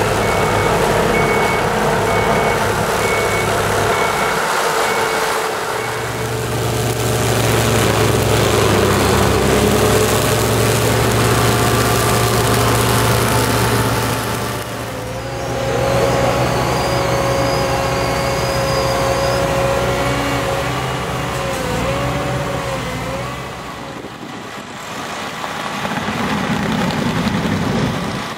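Heavy diesel machines running at work: a wheeled excavator powering a flail-mower head, then a tracked carrier driving a front-mounted mulching attachment, each with a steady engine drone. A short row of regular high beeps sounds in the first few seconds. About halfway the sound changes abruptly to a different engine with a steady whine.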